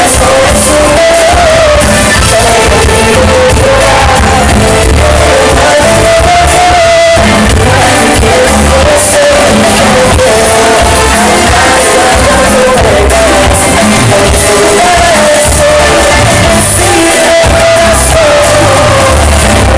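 Loud live band music with a lead vocal singing a wavering melody over a steady bass beat.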